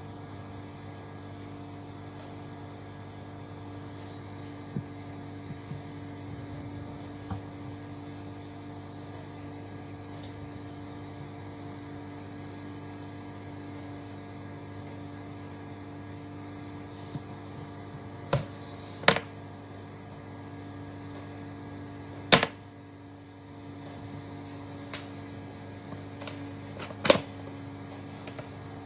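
Steady electrical mains hum from the bench power-supply setup. It is broken by a few sharp clicks in the second half, two close together, then the loudest one a few seconds later and another near the end.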